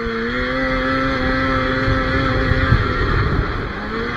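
A 500 cc two-stroke snowmobile engine running hard at a steady high pitch, with track and snow rumble underneath. About two-thirds of the way through the note drops away as the throttle eases off, and it climbs again briefly near the end.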